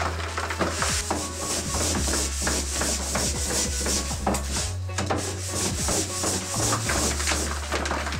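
Repeated rubbing and scraping on a wooden work surface, with many light knocks and a steady low hum underneath.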